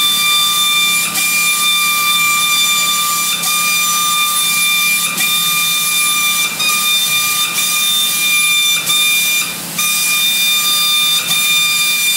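Paint spray gun running: a steady high-pitched whine over hiss, cut by short breaks every second or two as the trigger is released between passes.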